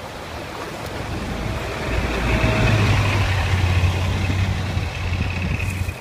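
A bus driving close past through slushy snow. Its engine's low drone swells about two seconds in and holds over the hiss of the road, then drops away near the end as the bus goes by.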